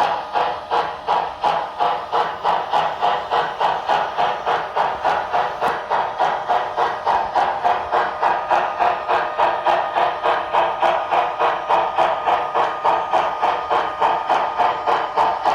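Sound decoder of an HO scale model steam locomotive playing steady exhaust chuffs through its onboard speaker, about three a second.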